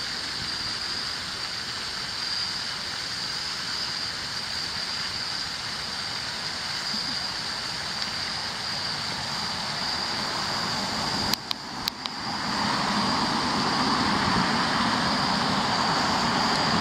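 Steady outdoor background hiss with an even high whine. A few sharp clicks come about eleven seconds in, then a louder rushing noise swells from about twelve seconds.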